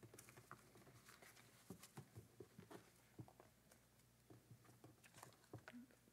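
Near silence: room tone with a low hum and scattered faint clicks and taps.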